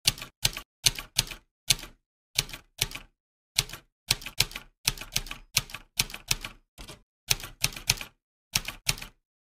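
Typing sound effect: an irregular run of sharp keystroke clicks, often in pairs or threes, with brief silent gaps between them, accompanying on-screen text being typed out letter by letter.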